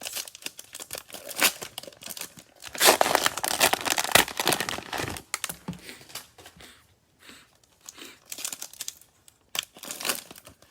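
Plastic cellophane wrapper of a Mosaic football cello card pack being torn open and crinkled by hand. The crackling comes in bursts and is heaviest a few seconds in.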